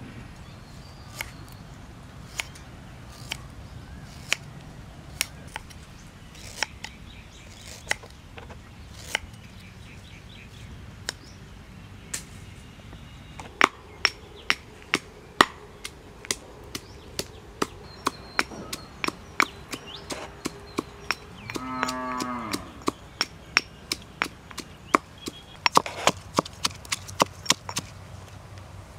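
A stone pestle pounds garlic and ginger in a stone mortar, with sharp knocks about once a second that quicken to about two a second about halfway through. About two-thirds of the way in, an animal calls once for about a second, its pitch falling at the end.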